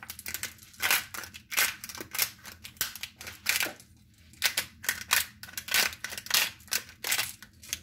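Handheld twist-top spice grinder cranked over meat: crunchy crackling grinds in quick bursts, about two twists a second, with a brief let-up about four seconds in.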